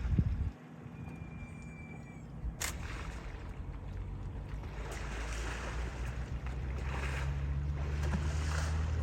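Water splashing and sloshing in repeated surges as elephants play in water, over a low steady rumble that grows louder through the second half.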